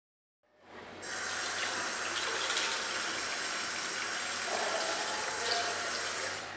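Tap water running into a washbasin, a steady rushing hiss that fades in about half a second in and stops just before the end.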